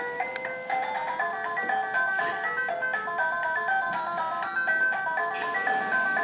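Electronic jingle from a child's toy convertible's music button: a simple melody of single stepping notes playing steadily.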